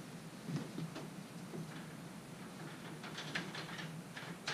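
Faint, scattered metallic clicks and taps of hand tools on bolts and parts inside a Brunswick A2 pinsetter, coming more often in the second half.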